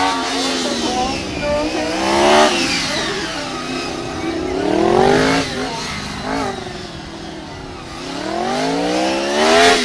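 Motorcycle engine revving up hard three times, each rise in revs falling away again, as the bike accelerates out of tight turns and slows for the next.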